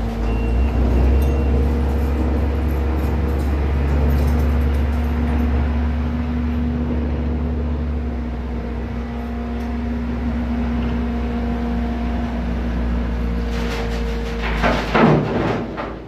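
Bobcat tracked skid steer's diesel engine running steadily as it drives a loaded bucket of dirt to a dump truck. Near the end comes a louder clattering stretch as the load is tipped into the truck's steel bed.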